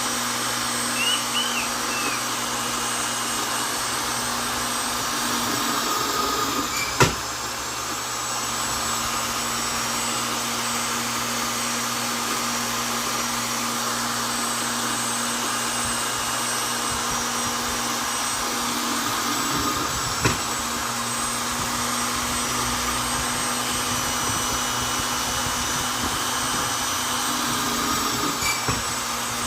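Vonder electric drill running steadily with a constant motor whine and hum. A sharp click about 7 seconds in, and a smaller one about 20 seconds in.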